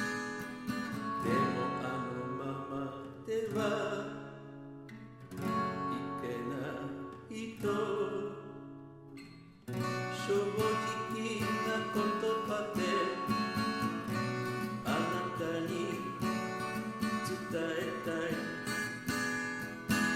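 Song music led by acoustic guitar, thinning to a quieter passage a few seconds in and coming back fuller about ten seconds in.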